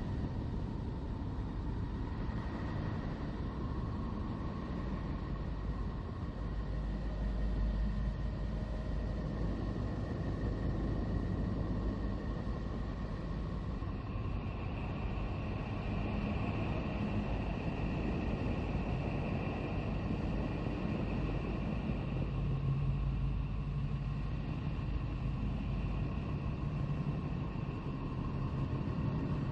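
Neptune 'space sound' made from Voyager 2 recordings: a steady low rumbling drone with faint held high tones over it, a higher tone joining about halfway through.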